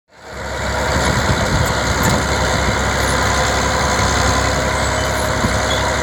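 Vintage crawler bulldozer's diesel engine running steadily as the machine pushes soil with its blade.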